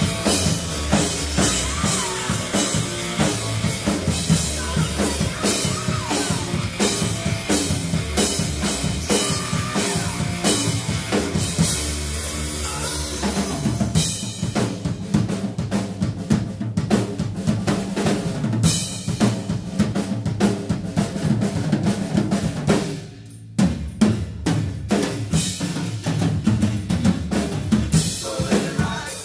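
Acoustic Tama drum kit played live: a fast rock groove of bass drum, snare and cymbals, with a short break about two-thirds of the way through.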